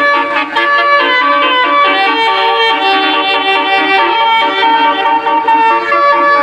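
Tour bus telolet horn, a set of electric air trumpets, playing a melody in held, stepping notes.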